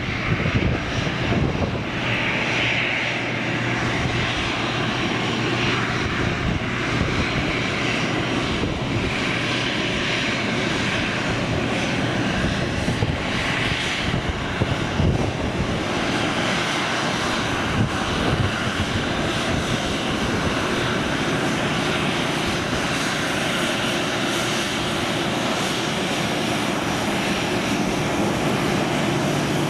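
Boeing 737-800 jet engines running at low taxi power as the airliner rolls slowly along the runway. The engine noise is steady, a little brighter and more whining in the first half.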